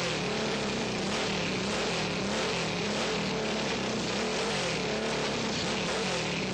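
Motorcycle engine running and being revved, its pitch rising and falling over and over, about twice a second.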